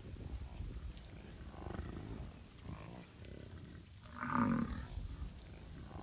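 American bison grunting: a series of low, rough grunts from the herd, with one louder grunt about four seconds in.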